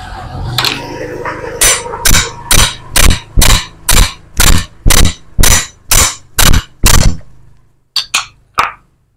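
Hammer blows on a steel bar and socket set against the end of a Yamaha Vixion's crankshaft, driving the crankshaft out of its crankcase half. There are about a dozen even, ringing metal strikes about two a second, then three quicker, lighter knocks near the end.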